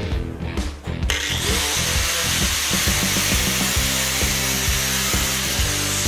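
Angle grinder working steel: about a second in it bites and gives a loud, steady grinding hiss that carries on.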